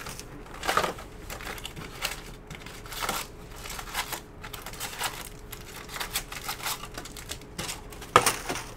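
A cardboard hobby box of Topps Stadium Club baseball cards being opened and its foil-wrapped packs pulled out: scattered rustles and clicks of cardboard and foil wrappers, with a sharper knock near the end.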